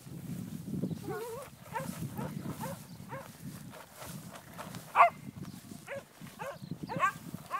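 Alpacas humming and calling as they are herded: many short, nasal pitched calls that bend up and down, repeating every half-second or so, with one louder call about five seconds in. A low rustling noise runs underneath.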